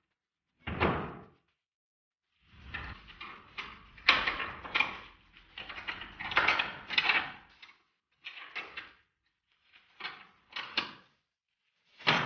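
Knocks and clanks of hand work fitting a car's boot lid, in short separate bursts: one about a second in, a busy run of several knocks in the middle, and a few single ones near the end.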